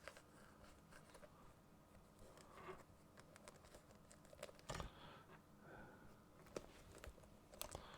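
Faint handling noises from a teleprompter's fabric hood being fitted: soft rustling with a few light clicks and knocks, the loudest a knock a little before five seconds in and a pair of clicks near the end.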